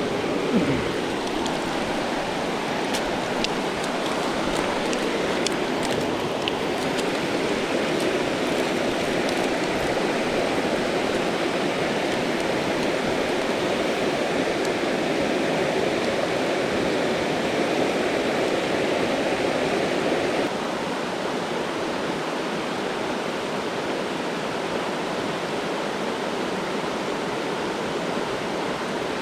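Mountain trout creek rushing steadily over rocks, a constant water noise. There is a short thump just after the start and a few faint clicks a few seconds in. The rush becomes a little quieter about twenty seconds in.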